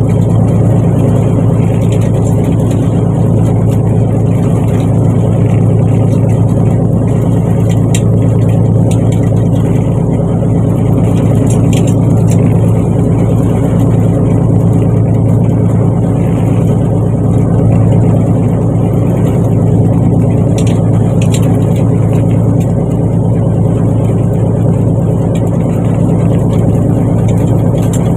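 Fishing boat's engine running at a steady pace: a loud, even, low drone that holds throughout, with a few faint ticks over it.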